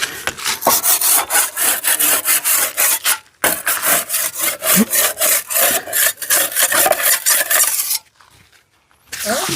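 Fast, rhythmic rasping scrapes of a hand tool working a hard surface, several strokes a second. They break off briefly about three and a half seconds in, stop about eight seconds in, and start again near the end.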